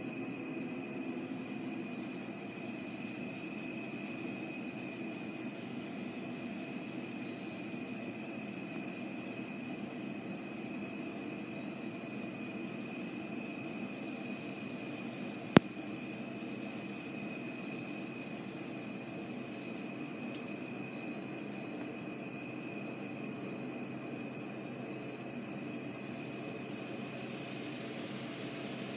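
Crickets and other night insects chirping steadily, joined twice by a faster, very high-pitched trill: for the first few seconds and again around sixteen to nineteen seconds in. A single sharp click comes about fifteen seconds in, over a low steady hum.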